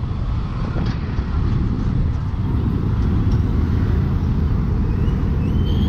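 Road noise from riding a motorcycle in dense city traffic: a steady low rumble of engines, with wind on the microphone.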